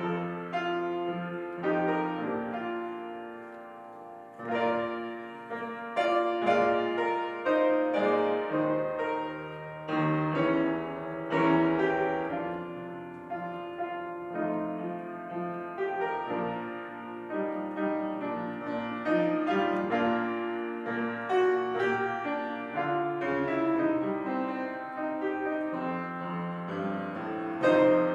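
Upright piano played solo, melody over chords. The playing softens about four seconds in, then picks up again.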